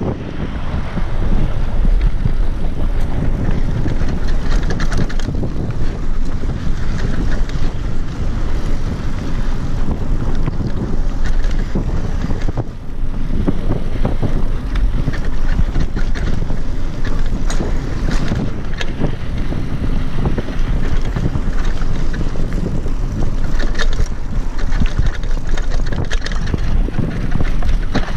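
Wind rushing over the microphone of a camera riding along on a mountain bike, a loud, steady, low rushing noise with scattered small clicks and rattles.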